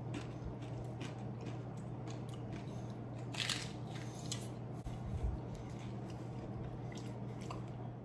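Close-up crunchy chewing of a crisp fried corn-tortilla shrimp taco, many small crunches with a louder crackle about three and a half seconds in, over a steady low hum.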